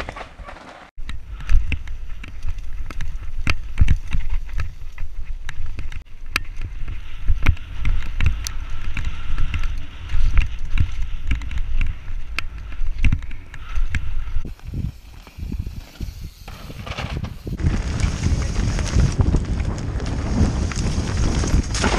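Mountain bike riding fast down a rough dirt forest trail, heard from a helmet-mounted camera: wind buffeting the microphone and tyres rumbling over the ground, with frequent sharp knocks and clatter from the bike over roots and bumps. The clatter eases briefly past the middle, then a steady rush of wind grows stronger near the end.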